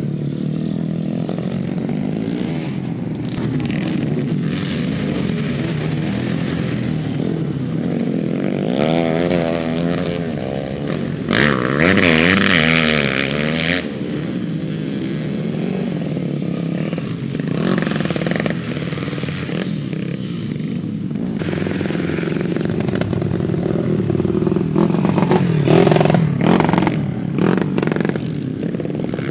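Motorcycle engines running on a dirt grasstrack circuit, pitch rising and falling as the bikes rev and ease off. A louder, hissing rush comes about twelve seconds in, and there is another loud stretch near the end.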